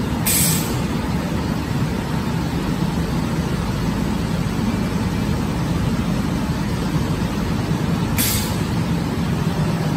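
CNC glass cutting table running with a steady low machine noise, broken twice by a short sharp hiss of released air, just after the start and about eight seconds in.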